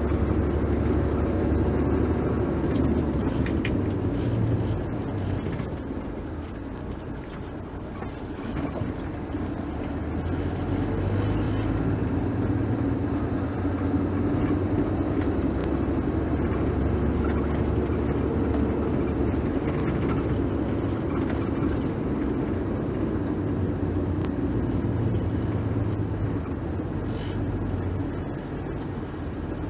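Car driving: a steady low engine and road hum that eases off for a few seconds about six seconds in and briefly again near the end.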